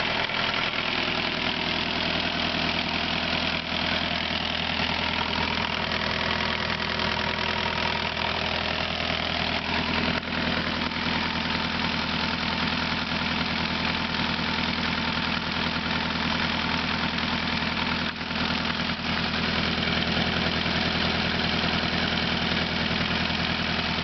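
Freshly rebuilt Westerbeke 30 marine diesel running steadily at idle on a test run. The sound is smooth and even, like a well-oiled sewing machine, the sign of a healthy engine after the rebuild.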